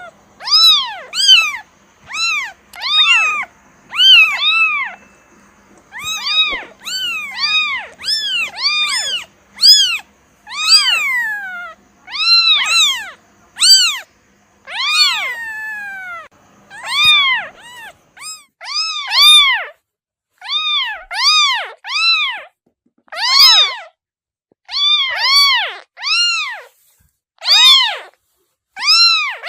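Kitten meowing over and over in short, high-pitched calls that rise and fall, about one a second and sometimes two in quick succession. A few longer meows near the middle trail off downward.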